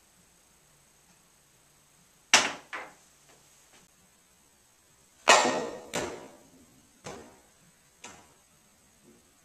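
Pool cue striking the cue ball and the ball knocking against the table and cushions: a series of sharp, separate knocks, a small cluster about two and a half seconds in, the loudest about five seconds in, then fainter knocks about a second apart.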